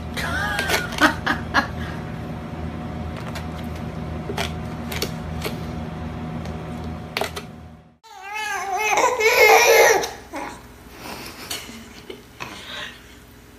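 A baby's babbling: short high vocal sounds near the start over a steady low hum, then a loud run of quick, high, rising-and-falling baby sounds about eight seconds in, trailing off into softer babbles.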